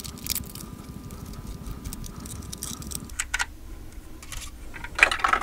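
Scattered light clicks and rustles of hands pulling a thin twisted wire tie free from a small diecast model car and handling the car, with a few sharper ticks near the end.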